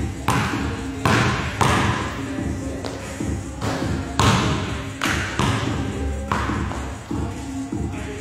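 Basketball bouncing on a gym floor in uneven, repeated thuds, about one to two a second, each one echoing through the large hall.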